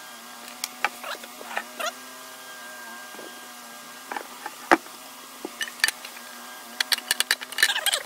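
Light clicks and small metallic rattles from hands handling a model engine's wiring and a tin can, coming thickest near the end, over a steady low hum.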